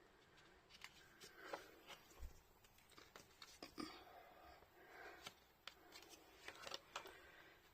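Faint scratching of dry colour being swatched onto paper, with scattered light clicks and taps from handling the art materials.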